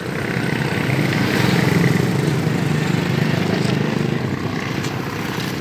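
A motor engine running close by, its low hum swelling over the first two seconds and then slowly easing off, like a vehicle going past.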